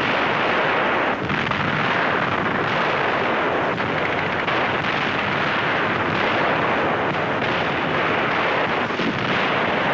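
Anti-aircraft flak and bomb explosions heard as a continuous dense roar on a 1940s film soundtrack.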